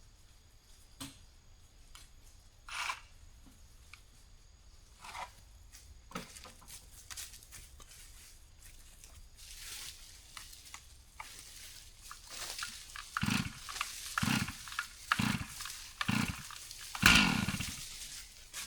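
Two-stroke chainsaw being pull-started: several tugs on the starter cord about a second apart in the second half, the engine coughing briefly on the loudest pull near the end.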